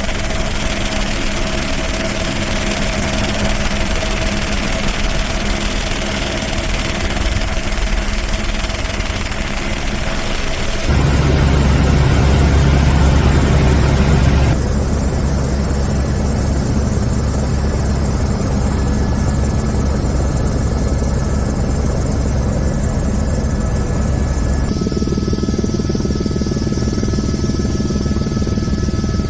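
Steady engine noise with a low drone, changing abruptly in tone three times.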